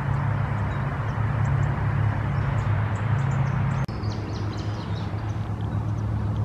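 Steady low engine hum with a wide hiss over it, and faint high bird chirps scattered above. The hum drops a little about four seconds in.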